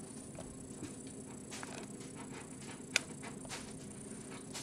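Faint rustling and soft light taps of a Bengal kitten moving over a plush blanket, with one sharper click about three seconds in.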